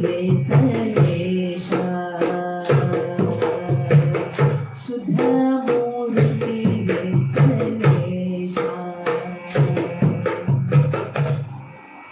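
A woman singing a Kannada devotional song, accompanied by wooden hand clappers clicking in rhythm and a steady drum beat. The music stops just before the end.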